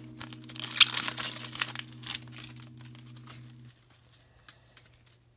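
Foil wrapper of a 2018-19 Upper Deck Artifacts hockey card pack crinkling as it is torn and peeled open, with a sharp crackle about a second in, then dying away after about two and a half seconds.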